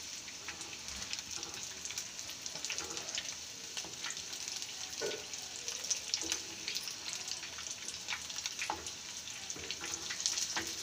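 Bread rolls deep-frying in hot refined oil in a kadhai: a steady sizzle with many scattered crackling pops, while a wooden spatula now and then stirs and turns them in the oil.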